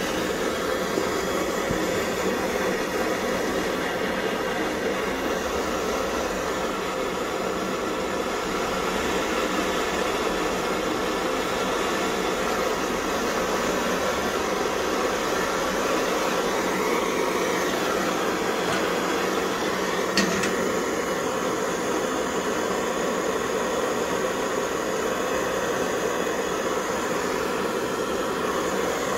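Pressurized kerosene stove burner running on filtered waste cooking oil, its flame giving a steady rushing noise. A single sharp click about twenty seconds in.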